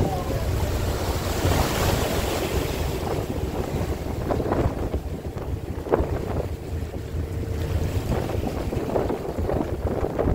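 Ice-breaking sightseeing boat pushing through drift ice, with a steady low rumble and wind buffeting the microphone. Broken floes knock and scrape against the hull a few times, sharpest about six seconds in.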